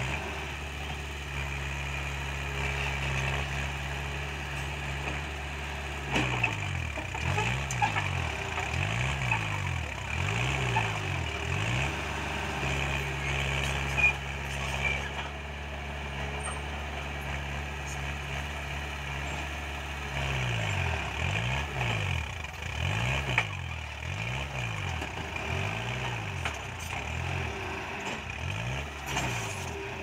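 Diesel engine of a small crawler bulldozer working under load as it pushes soil into a dump truck, with the truck's engine running alongside. The engine note rises and falls about once a second in two long stretches, with a few sharp knocks as rocks and dirt strike the steel bed.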